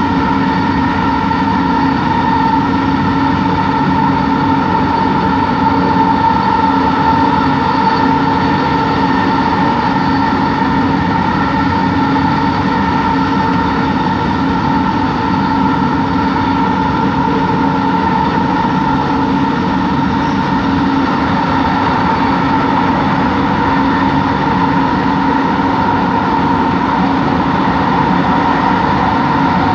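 Bombardier Innovia ART 200 train running, heard on board: a steady whine at several fixed pitches, the highest and loudest near the top, over a constant running rumble. This whine is the car's weird motor noise from its linear induction motor drive.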